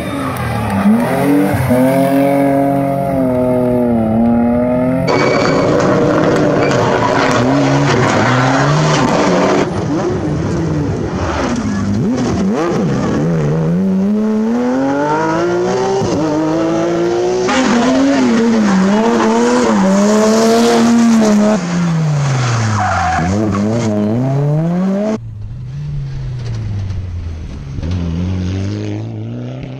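Rally cars at full race pace in quick succession, their engines revving hard and the pitch climbing and dropping with each gear change and lift off the throttle, with some tyre noise. The sound changes abruptly every few seconds as one car gives way to the next.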